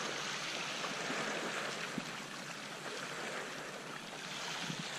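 Small sea waves washing over a pebble shore: a steady hiss of moving water, with a few faint clicks.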